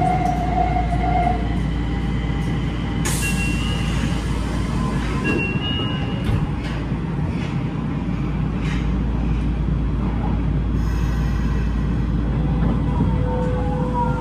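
Nagoya Municipal Subway 2000 series train heard from inside the car: a constant rumble from running gear and tunnel, with short, steady whining tones from its Hitachi GTO inverter drive that change pitch in steps.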